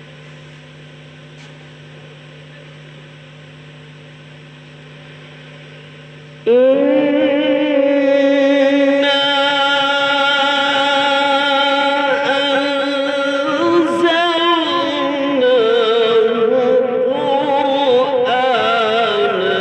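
A quiet steady hum, then about six seconds in a voice starts singing loudly in a melodic chant, holding long notes with a wavering vibrato that slides between pitches.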